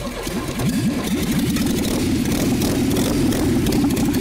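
Car engine with its crankshaft webbing and counterweights cut off being cranked over by the starter; it catches about a second or two in and keeps running unevenly.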